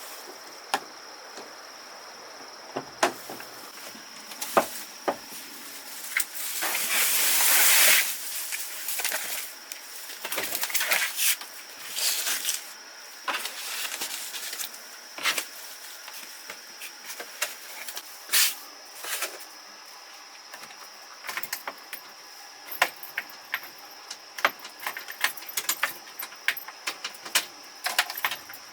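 Metal tools and parts being handled: scattered sharp clinks and knocks throughout, with a rush of hissing about seven seconds in and a few shorter hisses after it.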